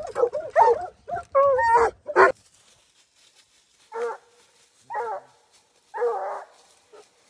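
Hunting hounds howling and whining in a rapid, overlapping string for about two seconds. After a short pause a single hound bays several times about a second apart, the third call the longest: a hound that has struck a bear's scent.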